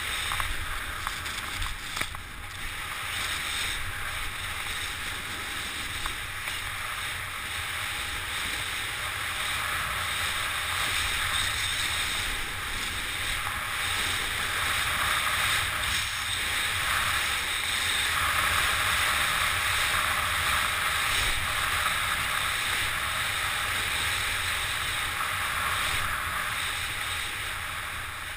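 Wind rushing over a skier-mounted camera's microphone, with skis hissing through powder snow on a fast downhill run. A steady rushing noise that grows somewhat louder midway and eases off near the end.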